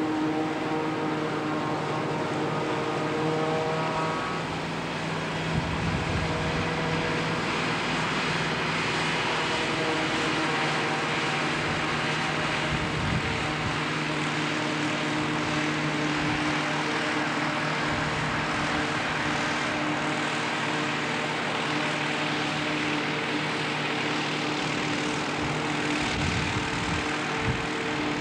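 A forage harvester chopping maize and a tractor with a silage trailer running alongside it: a steady, loud machine drone of engine hum under the hiss of the chopper. The engine tones shift slightly in pitch a few times.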